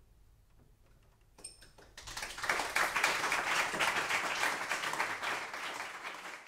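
Audience applauding: a few scattered claps about a second and a half in, then full applause from about two seconds in.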